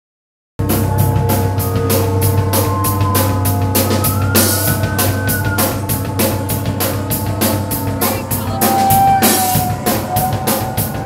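Live rock band playing, with the drum kit beating out fast, even cymbal and drum hits at about four to five a second over held notes. One held note bends up and back down midway. The music cuts in abruptly just after the start.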